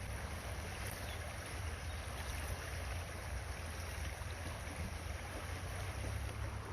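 Steady rushing of fast-flowing river water, with a low wind rumble on the microphone.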